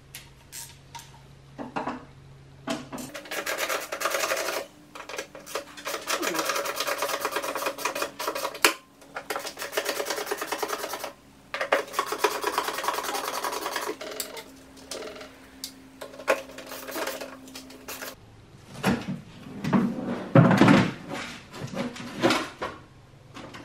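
Hand work on a plastic car air filter housing: long stretches of rubbing and scraping against the plastic, broken by short pauses, then a cluster of knocks and clatter in the last few seconds as the housing is lifted and opened.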